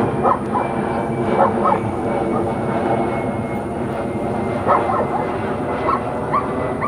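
A dog yipping and barking in short, scattered bursts over a steady engine drone.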